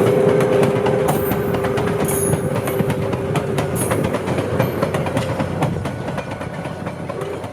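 Train cars rolling past behind a steam locomotive, with many short clicks of wheels over rail joints and a few brief high squeals. A steady two-note tone holds through the first half, and the sound slowly fades toward the end.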